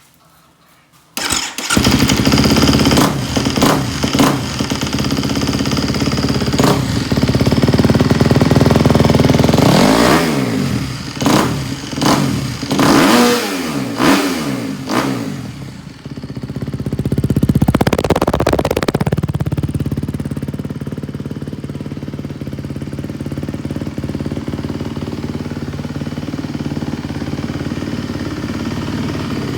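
Kawasaki KX250 single-cylinder four-stroke dirt bike engine starting abruptly about a second in, then blipped through a series of quick revs that fall back each time, revved once more, and left idling steadily.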